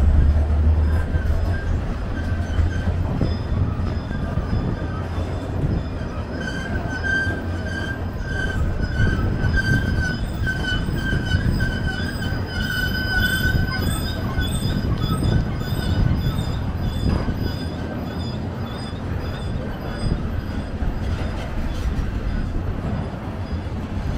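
Freight train of covered hopper cars rolling steadily through a level crossing: a continuous rumble of wheels on rail, with a high squealing whine from the wheels that is strongest from about seven to fourteen seconds in.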